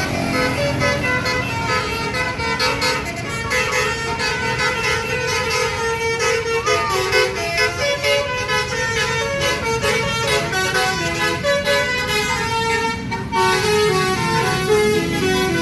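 Basuri telolet horn, a multi-tone musical bus horn, playing a quick tune of short notes that step up and down in pitch, over a steady low rumble.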